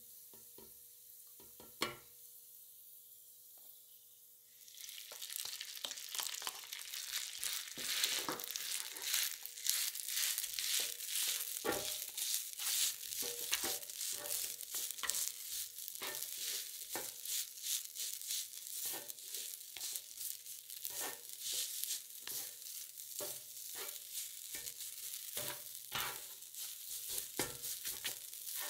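Garlic and rice frying on a flat hot plate. The sizzling grows much louder about four and a half seconds in and keeps going, with frequent taps and scrapes of two plastic spatulas chopping and tossing the rice.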